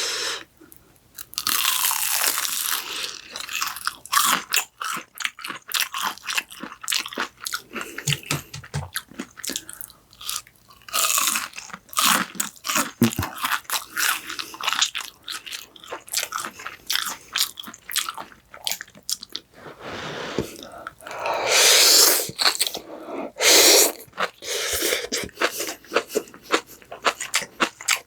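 Close-miked eating: crisp crunching and chewing of fried food, many sharp crackles in quick succession, with a few longer, louder noisy stretches about three-quarters of the way through.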